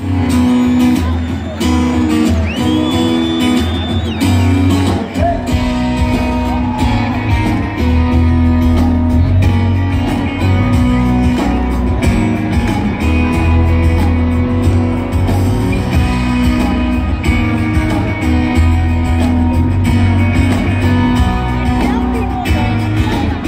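Country band playing live through a PA: electric and acoustic guitars over bass and drums, heard from among the audience.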